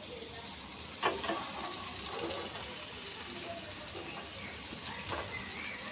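Jalebi batter frying in hot oil in a non-stick tawa: a steady sizzle and frothing of the oil, with a few light clicks about one, two and five seconds in.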